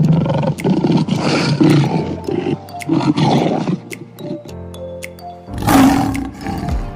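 A big cat, lion or tiger, roaring in a run of rough bursts for about four seconds, then once more near the end, over background music.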